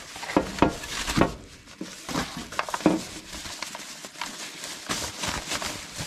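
Thin polythene bag crinkling and rustling as it is pulled off a plastic electric-kettle base, with a few sharp knocks in the first second or so.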